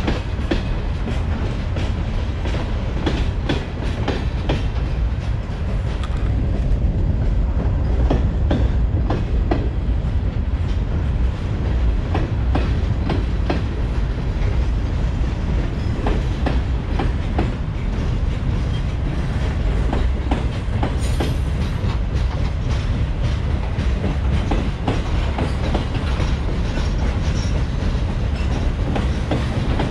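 Freight train cars rolling past, with a steady low rumble and frequent sharp clacks of steel wheels over the rail joints.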